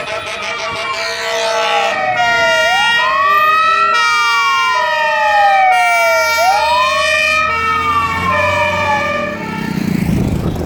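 Fire engine sirens: a wail sliding slowly up and down, about once every four seconds, layered over a second siren's steady alternating tones. A truck engine's low rumble and noise swell near the end.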